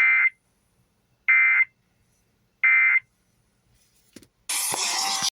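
Emergency Alert System end-of-message tones: three short, identical bursts of digital data (the SAME "NNNN" header), each about a third of a second long and a little over a second apart, closing the test broadcast. About four and a half seconds in, a loud noisy rush begins.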